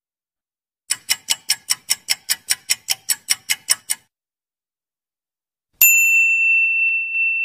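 Comedy sound effects: a fast run of sharp ticks, about five a second, lasting about three seconds, then after a pause a single bright bell ding that rings on to the end. This is the cartoon cue for thinking hard and then hitting on an idea.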